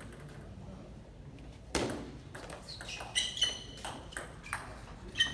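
Table tennis rally: the plastic ball clicks sharply off paddles and table, about two strikes a second, starting about two seconds in, with a short high ping on many hits.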